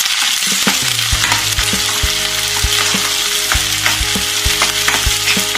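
Ground masala paste and chopped onions sizzling in hot oil in a kadhai, stirred with a steel spoon that scrapes and clicks against the pan again and again.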